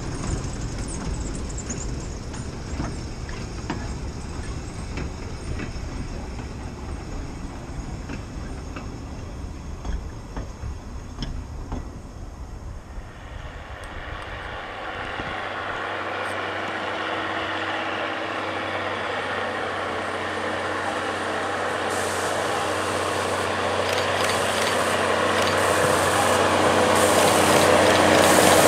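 Narrow-gauge diesel locomotive engine running as it pulls away with a freight train. About halfway through, a second diesel locomotive run begins: the engine hums steadily as it approaches with passenger coaches, growing steadily louder toward the end.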